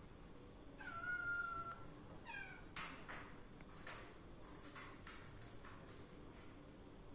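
Domestic cat meowing up at a moth out of reach on the wall: one drawn-out meow about a second in, then a short falling chirp-like call. This is followed by several short clicks.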